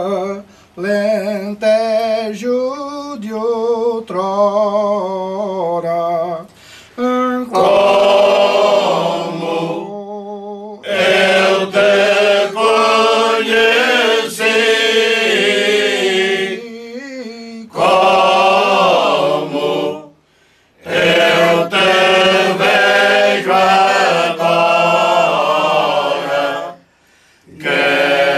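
Unaccompanied male choir singing cante alentejano in slow, long-held phrases. A lighter opening phrase gives way to the full choir about seven seconds in, with short pauses for breath between phrases.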